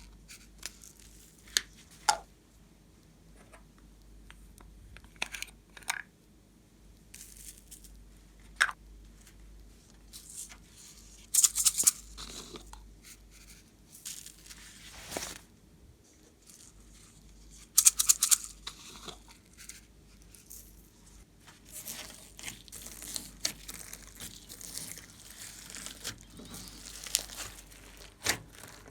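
Slime being squeezed, stretched and poked by hand: irregular sticky crackles, tearing sounds and small pops, with louder bursts of crackling about eleven and eighteen seconds in.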